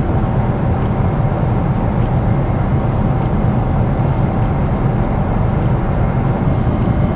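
Boeing 777-300 airliner cabin in cruise: the steady low rush of engine and airflow noise, with a faint constant tone running through it.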